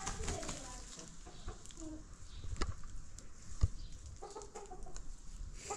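Domestic hens clucking in short, scattered calls, with a couple of sharp knocks, the louder one a little past halfway.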